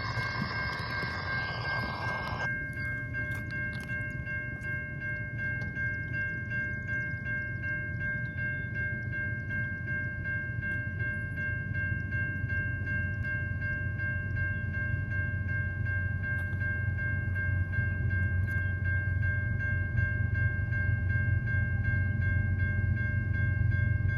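Grade-crossing warning bell ringing steadily over the low rumble of an approaching freight train's GE diesel locomotives, which grows louder toward the end. There is a brief hiss in the first couple of seconds.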